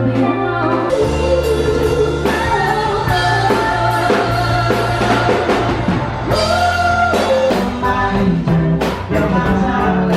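Rock-style music with singing over drums and guitar.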